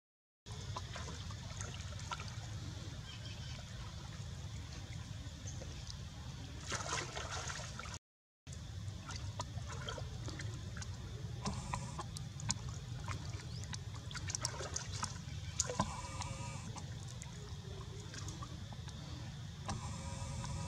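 Water splashing and sloshing as macaques wade and swim in a shallow pond, over a steady low rumble. There are scattered small splashes and a few short calls in the second half. The sound cuts out briefly twice, once at the very start and once about eight seconds in.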